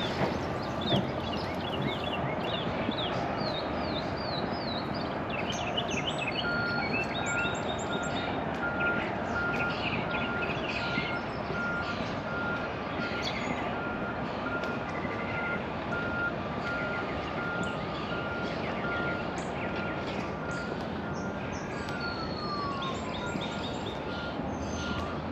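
Songbirds chirping and trilling over a steady background hum. From about six seconds in, a run of evenly spaced beeps carries on to the end, and a drawn-out tone slides down in pitch near the end.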